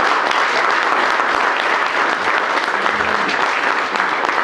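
Audience applauding, dense and steady, at the close of a speech.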